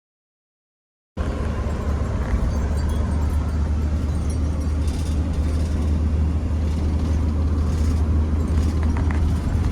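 Steady low rumble of a campervan's engine and tyres heard from inside the cab while driving. It starts abruptly about a second in, after a moment of silence.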